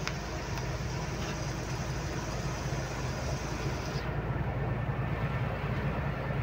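Truck engine running steadily at highway cruising speed with tyre and road noise, heard from inside the cab. There is a short click right at the start, and the higher hiss drops away abruptly about four seconds in.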